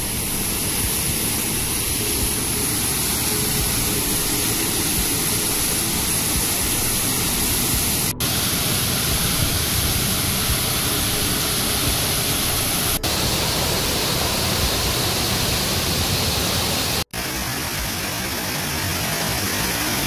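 Steady rushing of a small waterfall pouring into a pool, with two brief dropouts, about eight and seventeen seconds in.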